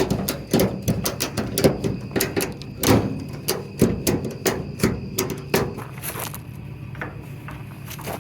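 Irregular series of sharp knocks and clanks, several a second, thinning out toward the end.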